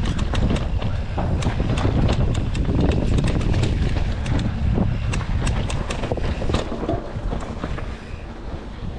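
Mountain bike riding over a rough dirt trail: tyres rumbling on the ground, with frequent sharp clicks and rattles, and wind buffeting the microphone. It eases off slightly near the end.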